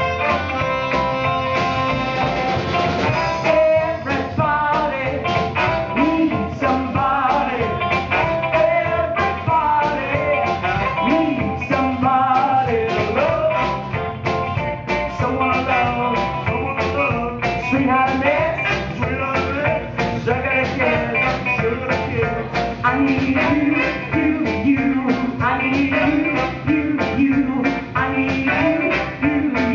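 Live soul and funk band playing: drum kit keeping a steady beat under electric bass, saxophone, and a woman singing lead.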